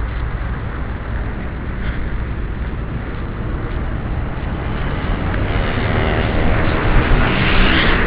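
Street traffic noise with wind rumbling on the microphone. A motor vehicle passes close by, its engine growing louder from about five seconds in and loudest near the end.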